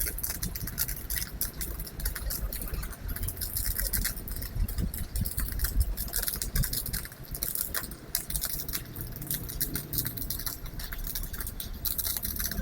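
Stick (MMA) welding arc crackling and sizzling steadily as a 3.2 mm electrode burns on thick steel, powered by a Hitbox AT2000 mini inverter welder; the arc is fairly stable.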